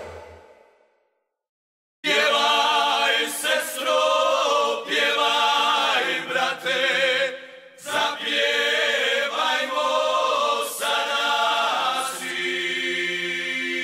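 A song ending, then about a second of silence, then a group of voices singing unaccompanied in long phrases separated by short breaths.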